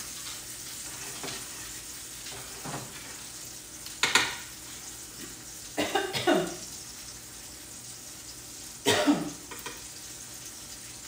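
Food frying in a pan with a steady sizzle, stirred with a utensil, with three loud scraping strokes about four, six and nine seconds in.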